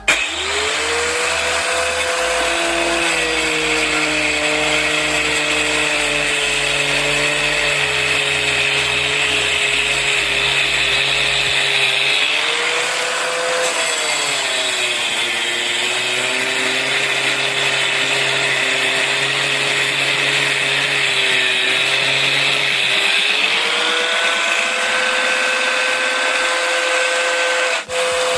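Angle grinder running steadily. It starts suddenly, and its motor pitch sags and recovers a couple of times as it takes load. It cuts out briefly near the end.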